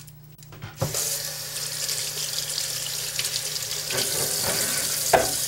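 Kitchen tap turned on about a second in: water runs into a stainless steel sink and splashes over a tomato being rinsed under it by hand. A brief sharp knock comes near the end.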